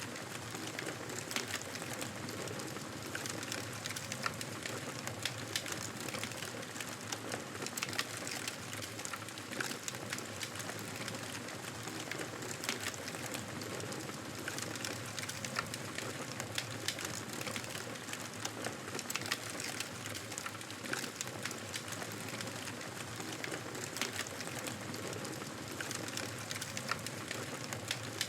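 Wood campfire burning, with continuous crackling and irregular sharp snaps and pops over a steady hiss.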